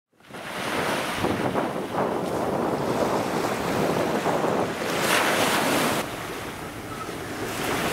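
Seawater at a very high tide surging and lapping against the arches of a stone harbour pier, with wind on the microphone and a louder surge about five seconds in. About six seconds in the sound drops to small waves washing up a sandy beach.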